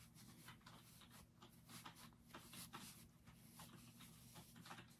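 Near silence: faint, scratchy rustling of fingers pushing soft toy stuffing into a crocheted arm and handling the yarn piece, over a low steady room hum.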